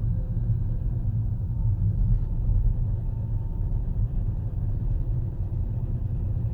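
Toyota 2AD-FHV four-cylinder common-rail diesel running steadily under load while driving, as a low, even rumble. One injector is unplugged, and with it off no knocking is heard, which marks that injector as the one that was knocking.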